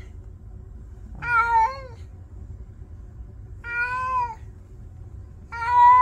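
Orange-and-white cat meowing three times, about two seconds apart, each call rising then falling in pitch, over a faint steady low hum.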